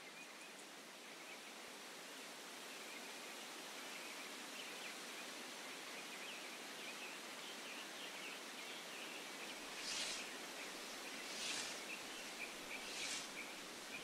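Rural outdoor ambience: a steady hiss with faint high chirping. From about two-thirds of the way in, soft swishes recur about every second and a half.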